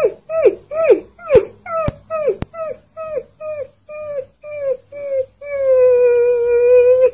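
Alaskan Malamute puppy howling: a run of about a dozen short yelping calls, each falling in pitch, then one long steady howl held for nearly two seconds.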